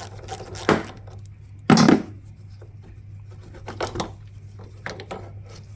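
Metal tool clinks and knocks as the negative battery terminal is loosened and disconnected on a Kia Sorento: one louder knock about two seconds in, then scattered lighter clicks.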